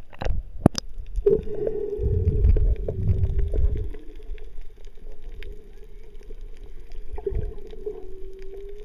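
Camera plunging from the surface into the sea with a couple of splashes, then underwater sound: a steady hum that wavers slightly in pitch, low rumbling surges of water movement and fine crackling.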